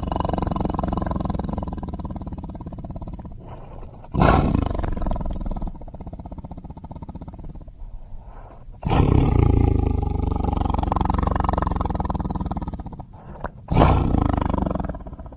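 A run of deep, rough animal roars used as sound effects for a cartoon rhino: one roar is trailing off as it begins, then fresh roars burst in about four, nine and fourteen seconds in, each fading over a few seconds.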